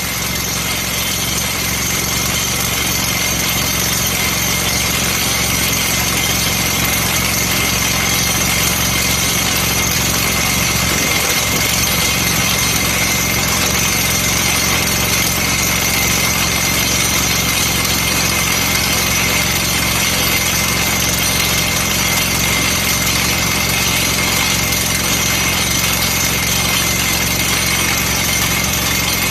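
Water-well drill rig's engine running steadily, a constant drone with a steady high whine over it.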